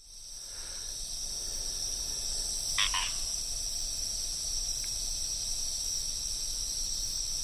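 Steady, high-pitched outdoor chorus of calling frogs and insects, fading in at the start, with two quick chirps about three seconds in.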